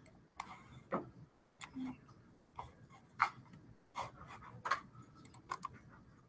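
Scattered clicks from a computer mouse and keyboard, about a dozen short, irregularly spaced clicks, some louder than others.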